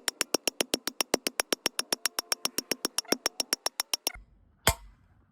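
Background music with a drum-machine beat: a fast, even run of hi-hat-like ticks, about nine a second, that breaks off about four seconds in and gives way to a couple of single hits over a low bass.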